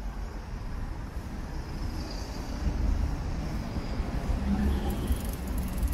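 City street traffic heard from a moving bicycle, mostly a low, uneven rumble that grows louder about halfway through.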